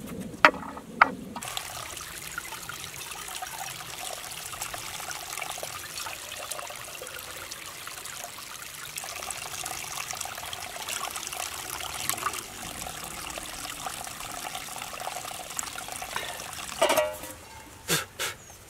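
Two sharp clacks of flat stones being set on a fire ring, then a thin stream of spring water trickling steadily off a root, partly into an enamel mug. Near the end, a few loud clanks of a metal pan knocking with a short ring.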